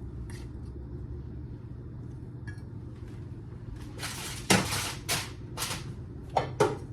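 Dishes and utensils being handled: a few short clatters and scrapes starting about four seconds in, over a steady low hum.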